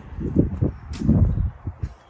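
Wind buffeting the microphone outdoors in irregular low rumbling gusts, with a sharp click about a second in.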